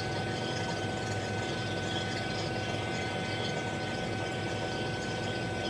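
Refrigeration vacuum pump running steadily with an even hum and a steady whine, pulling a deep vacuum on a reach-in refrigerator's system after a compressor change.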